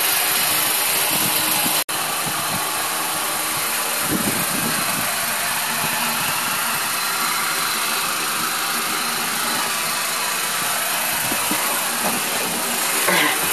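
Electric fan running steadily, a constant whooshing noise with a faint hum. The sound drops out for an instant about two seconds in.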